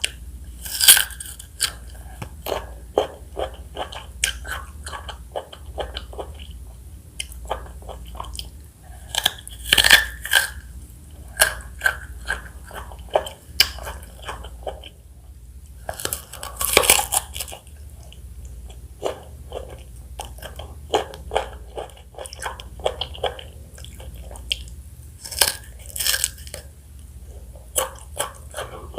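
Close-miked chewing and biting of fresh fruit (strawberry, mango and pineapple), with wet crunching and mouth clicks throughout and a few louder bites spread across it, about a second in, around ten, seventeen and twenty-six seconds.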